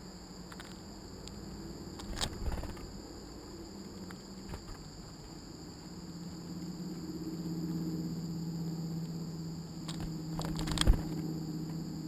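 Steady chorus of insects such as crickets, a constant high-pitched drone, over a low hum that swells in the second half. A few sharp knocks and taps break in about two seconds in and again near the end, the loudest at about eleven seconds.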